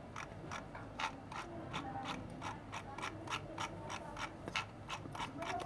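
Scroll wheel of a Logitech M90 wired mouse being rolled, its notches ticking in a quiet, even run of about four or five ticks a second. This is the sound of a new wheel, which the owner finds not noisy yet.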